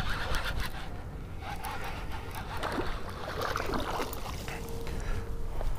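Wind rumbling on the microphone while a small bass is reeled to the bank on a baitcasting reel, with a few faint splashes and handling noises.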